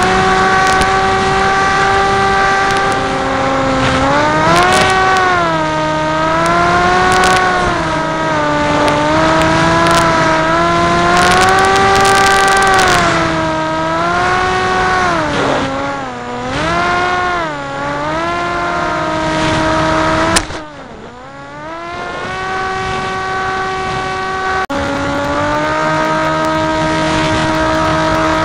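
Onboard sound of an RC combat wing's propeller motor in flight, a steady buzzing note whose pitch rises and falls with throttle and manoeuvres. About 20 seconds in, a sharp click drops the motor note quieter and lower, sliding down and back up. Near 25 seconds it returns to full level.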